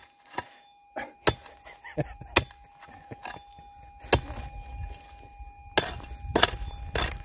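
Prospecting pick striking and scraping stony gravel ground in a series of sharp clinking blows, roughly one a second and coming faster near the end, as a loud metal-detector target is dug out.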